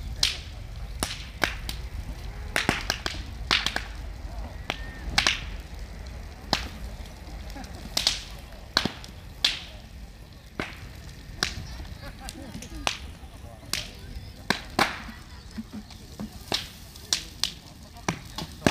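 Large bonfire of bamboo burning, the bamboo bursting in sharp, irregular cracks and pops about once a second over a steady low rumble.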